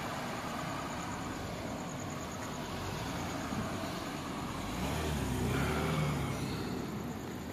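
A car's engine running as it moves slowly past close by, growing louder from about five seconds in and then easing off.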